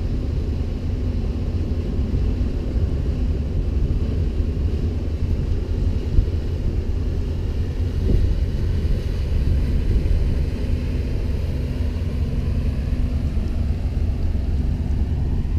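Engine of a 1998 Bayliner 2655 cruiser running steadily with a low rumble, just after being started to get under way.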